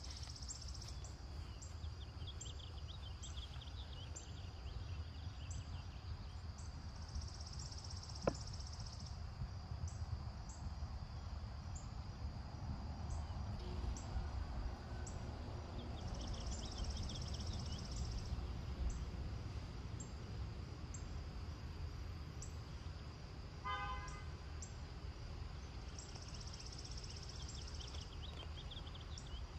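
Outdoor yard ambience: a steady low rumble, with a high buzz that swells and fades three times, a faint tick about once a second, and a short pitched toot about three-quarters of the way through.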